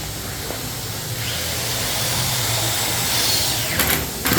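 A power tool's motor running steadily in a workshop, its hiss growing louder from about a second in, with a brief break near the end.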